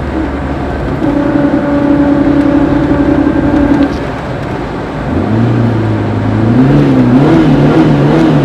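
Citroën ZX running and making an unusual noise: a steady whine sets in about a second in and stops after about three seconds, then a lower hum starts about five seconds in, rising and wavering up and down in pitch.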